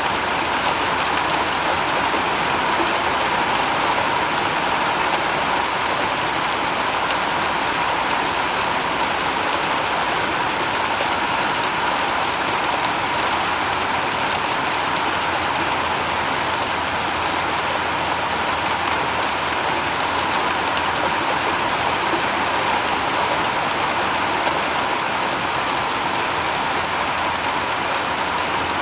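Steady rain falling on a shingled roof: a dense, even patter of drops that holds without change.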